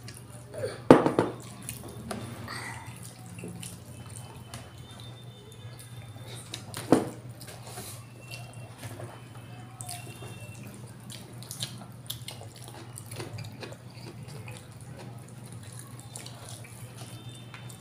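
Close-up mukbang eating sounds: wet chewing and lip smacks, and hands squishing through rice and sauce. Two louder sharp knocks, about a second in and about seven seconds in.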